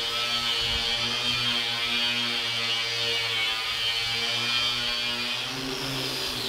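Angle grinder fitted with an abrasive disc, buffing the surface of a 4 mm steel plate clean: a steady motor hum with a high whine over it. It begins to wind down at the very end.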